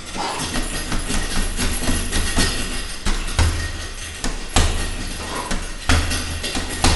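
Boxing-gloved punches landing on a hanging heavy bag: sharp thuds at irregular intervals, a few seconds apart, over a steady background.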